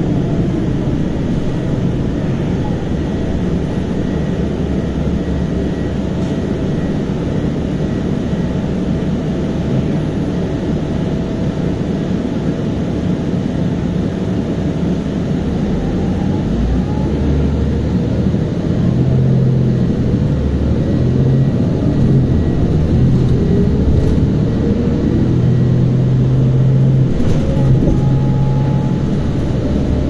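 Bus engine and road noise heard from inside the cabin: a steady low rumble with whines that rise and fall in pitch as the bus changes speed. The engine note grows louder and heavier about two-thirds of the way through.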